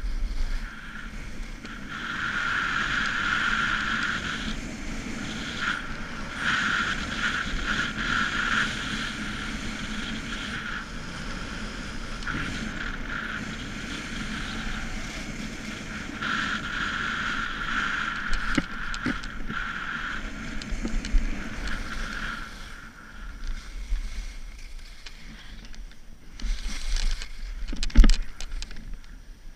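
Skis sliding and carving on groomed hard-packed snow, a continuous scraping hiss that swells and fades with the turns, with wind buffeting the microphone at times. A sharp knock near the end.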